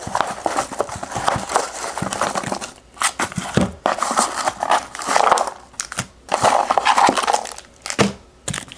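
Foam packing peanuts rustling and squeaking as a hand rummages through them in a small cardboard box: an uneven crackling rustle in bursts, with short pauses.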